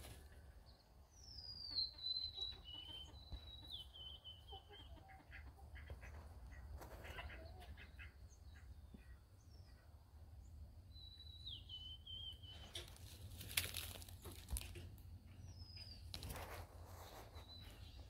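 A sparrow singing short songs of clear whistled notes that step down in pitch, twice. Between them come a few rustling, scuffling noises, the loudest a little past the middle.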